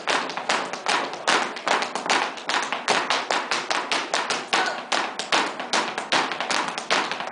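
Flamenco footwork (zapateado): rapid, rhythmic heel and toe strikes of dance shoes on a wooden floor, mixed with hand claps.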